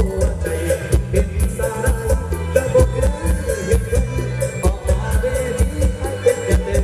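Music with a heavy bass beat played loud through an outdoor cinema's large PA speaker stacks, which are powered by NPE power amplifiers.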